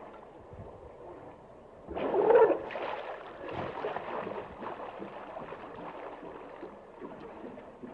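Hippo in the water: sloshing and gurgling, with a louder gurgling burst about two seconds in.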